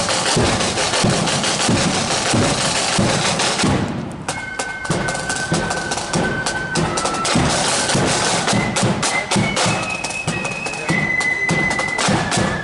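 Marching flute band: snare drums and bass drum beating a steady march rhythm, then about four seconds in the flutes come in with a high melody over the drums.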